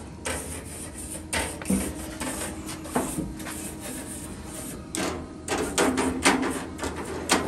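Gas grill grates being scraped with a grill brush or scraper to clean off loose residue from the heated grill. A few scattered knocks and scrapes come first, then about halfway through a run of quick, repeated scraping strokes.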